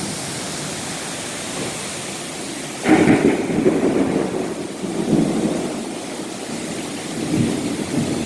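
Steady rain falling during a thunderstorm, with a sudden clap of thunder about three seconds in that rumbles on for several seconds, and another rumble near the end.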